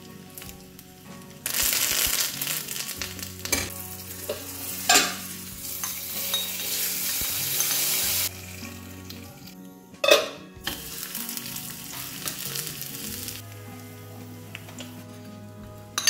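Shallots, dried red chillies and curry leaves sizzling in hot oil in a small pan, a tempering for fish curry, with a few clinks of a spoon. The sizzle drops about eight seconds in as the tempering is poured into the curry. A sharp knock of cookware comes about two seconds later, and the sizzle picks up again near the end.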